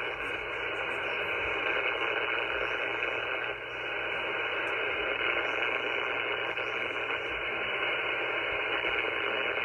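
Power-line interference received by a Flex-1500 software-defined radio on the 75 m band: a steady hiss of noise filling the receiver's audio up to a sharp cutoff near 3 kHz. The noise comes from arcing on power lines several blocks away.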